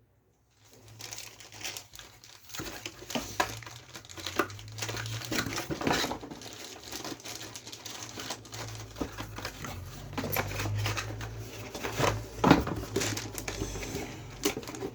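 Plastic packaging crinkling and rustling with irregular small handling knocks, as a hand searches through motherboard accessory packaging for M.2 screws; it starts about half a second in.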